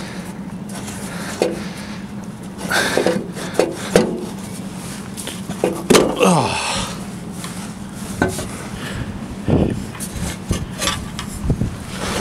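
Rubber exhaust hangers being pried off the steel hanger rods of a 2019 Nissan Kicks's exhaust: scattered rubbing, squeaks and knocks as the muffler shifts, with a falling squeal about six seconds in.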